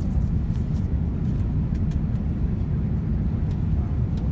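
Cabin noise inside an Airbus A350-900 climbing just after takeoff: a steady low rumble from its Rolls-Royce Trent XWB engines and the airflow past the fuselage.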